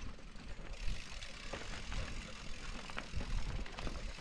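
Mountain bike tyres rolling over a dirt and rock trail, heard from a camera on a dog running close behind: a steady crunching haze with scattered clicks and rattles over a low, uneven rumble of wind and jostling.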